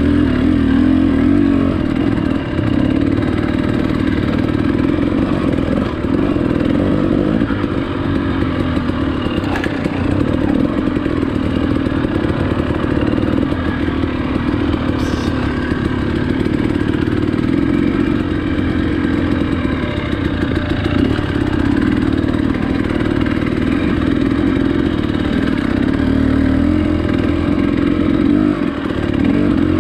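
Motorcycle engine running steadily under way, holding an even pace without big revs.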